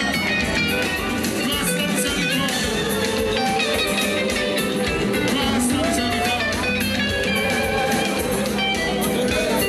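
Band music led by electric guitar melody lines, continuing steadily.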